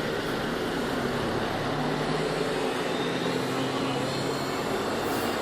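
Steady motor-vehicle noise: an engine hum over road traffic noise.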